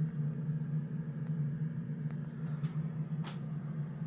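A steady low hum in the room, with a few faint clicks or taps in the second half.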